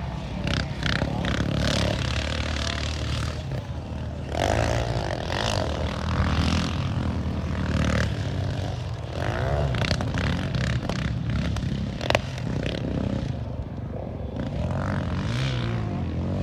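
Yamaha Raptor 700's single-cylinder four-stroke engine running under load as the quad is ridden, its revs rising and falling several times, with bursts of rushing noise over it and one sharp knock.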